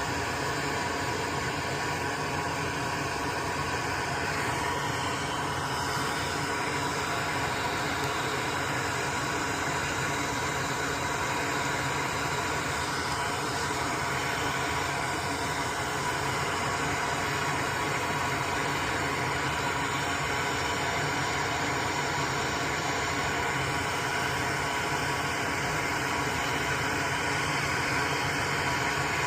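Steady whirring hum of a fan with an even hiss, unchanging throughout, with no distinct knocks or clicks.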